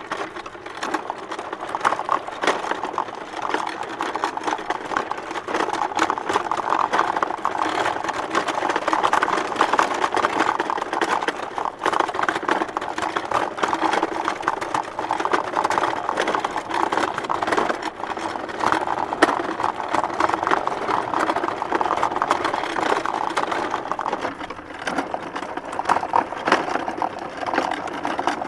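Small wooden hand cart pulled along a bumpy dirt road: its wooden body and wheels rattle and knock continuously in a dense clatter over the ruts.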